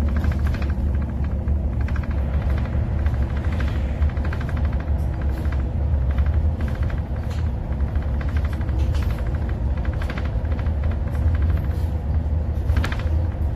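Steady low rumble of a moving vehicle heard from inside, with no marked change from start to finish.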